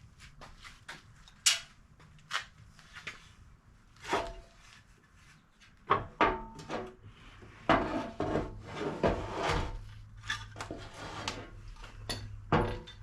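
Hardware being handled while a winch is mounted: an irregular run of clicks, knocks and rubbing, sparse at first and busier from about halfway on.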